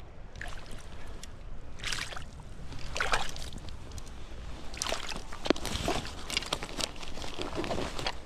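Irregular splashes and sloshes of water around a landing net as a caught rainbow trout is handled in it, the splashing busiest in the second half.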